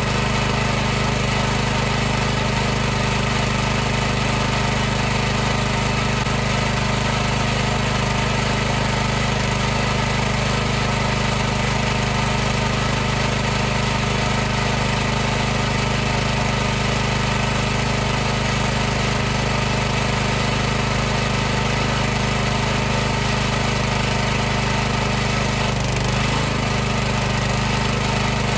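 High-pressure washer running steadily: a constant motor-and-pump hum over an even hiss, with a brief dip in pitch near the end.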